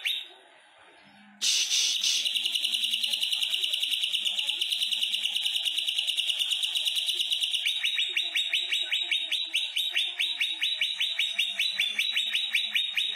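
Caged male green leafbird (cucak ijo) singing. About a second and a half in it breaks into a long unbroken fast trill, which after about eight seconds turns into a quick string of separate repeated chirps. This is the long, non-stop delivery that bird keepers liken to a lovebird's.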